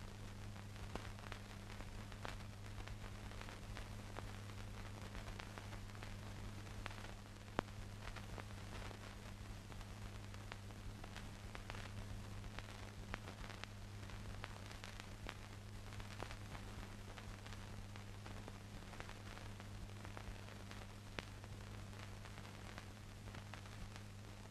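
Faint hiss and crackle of an old film soundtrack, with a steady low hum and scattered clicks, one louder about seven and a half seconds in.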